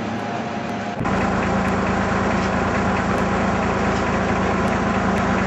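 Fordson Dexta tractor's three-cylinder diesel engine running steadily at a low, even speed with a fast, regular knock. About a second in it comes in suddenly louder and closer.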